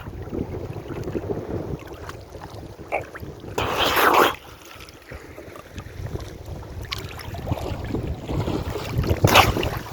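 Wind buffeting the microphone over sea water sloshing, with two short loud splashes, about four seconds in and again near the end.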